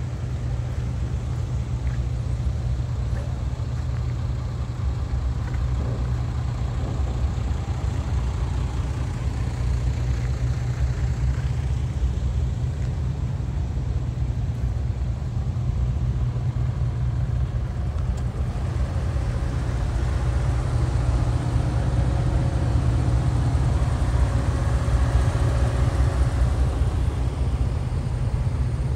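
Heavy truck's diesel engine running with a steady low rumble, growing somewhat louder over the last ten seconds or so.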